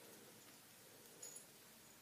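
Near silence: faint room tone, with one brief faint click a little over a second in.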